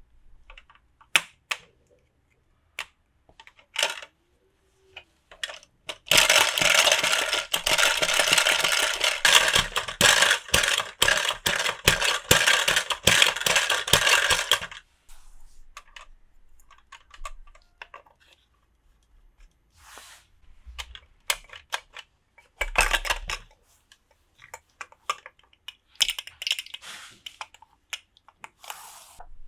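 Toy packaging and small plastic pieces being handled: scattered light clicks and taps, and a long stretch of dense crinkling with many clicks from about six seconds in to about fifteen, then shorter crinkling bursts near the end.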